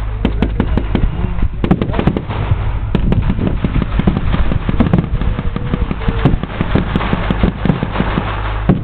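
Dense, irregular blank gunfire and pyrotechnic battlefield charges: many sharp cracks in quick, overlapping succession over a steady low rumble.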